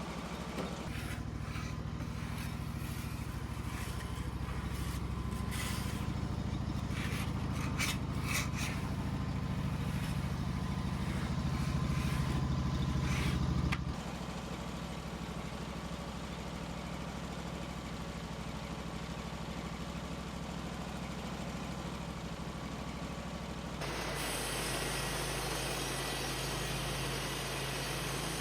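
An engine runs steadily, building up louder for the first half, with scattered knocks and clicks. At about the middle it drops suddenly to a lower, steady running, and near the end the sound changes abruptly to a brighter hiss over the engine.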